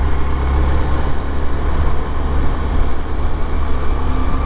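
Motor vehicle on the move: a steady low rumble of engine and road noise.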